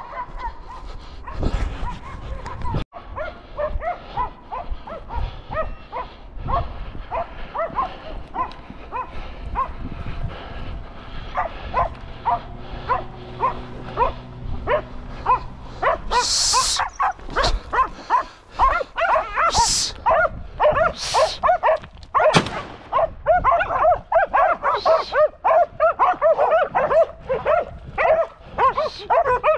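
Pack of hunting dogs barking and yelping rapidly at a wild boar they have cornered, the barking growing denser and louder in the last few seconds. A few short bursts of loud hissing noise cut in about halfway through.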